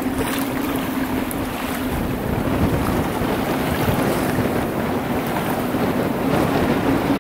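Wind buffeting the microphone over rushing, washing sea water from aboard a sailboat, with a low steady hum that fades out within the first second.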